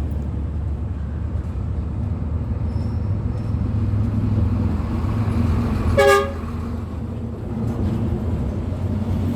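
Steady low rumble of road traffic, with one short vehicle horn toot about six seconds in.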